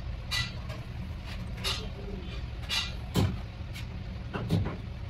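Steady low drone of a running engine, with short metallic clinks about once a second as a 10 mm spanner works the side-cover bolts of a steering box; two clinks near the end are louder.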